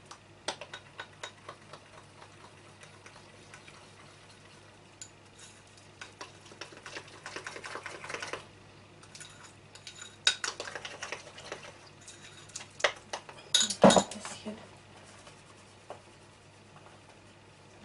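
A spoon stirring thick powdered-sugar icing in a small glass bowl, scraping and clinking against the glass in spells of quick strokes. A louder knock and clatter comes about three-quarters of the way through.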